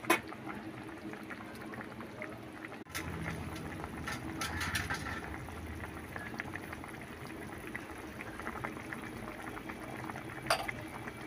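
Tilapia fish curry boiling in a metal kadai, a steady run of small bubbling pops. A sharp metal clink at the very start as the spatula is set down, and a short knock near the end.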